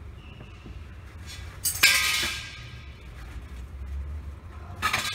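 Metal parts clinking inside a vending machine's lift compartment: one loud metallic clink with a short ring about two seconds in, and a smaller sharp clatter near the end, over a steady low hum.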